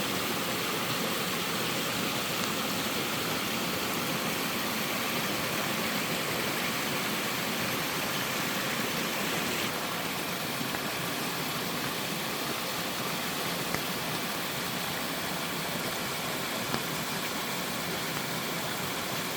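Mountain stream water rushing down a five-tiered sliding waterfall over sloping rock, a steady rush of water. About ten seconds in it turns slightly quieter and less hissy.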